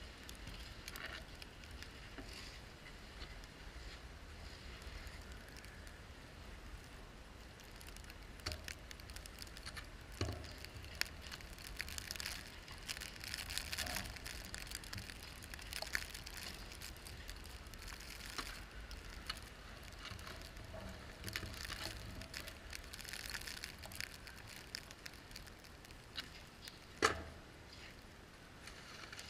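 Car driving slowly through snow: a low steady rumble with irregular crackling and crunching from the tyres on the snow, and one sharp click about 27 seconds in.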